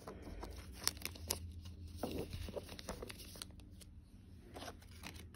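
Trading cards being handled and laid down: light rustling with scattered small clicks.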